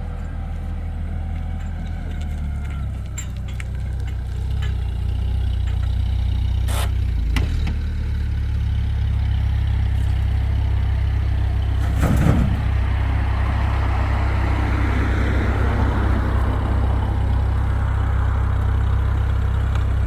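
Vehicle engine idling with a steady low hum, with a few sharp knocks, about 7 and 12 seconds in.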